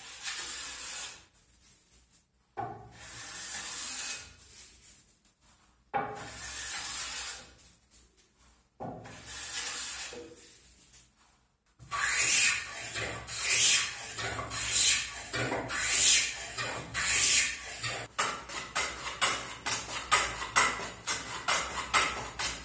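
Hand plane cutting shavings from a softwood board in long hissing strokes: four separate passes with pauses between them, then a run of quicker, louder strokes. Near the end, a handsaw cuts with rapid rasping strokes several times a second.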